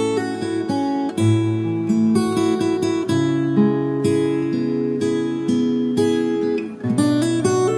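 Acoustic guitar playing a relaxing instrumental piece: plucked melody notes over held bass notes.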